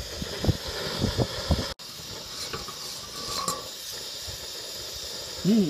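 Steady hiss of a portable gas stove's burner under a clay pot of groundnut masala, with uneven low rumbles in the first couple of seconds and a quieter steady hiss after an abrupt cut.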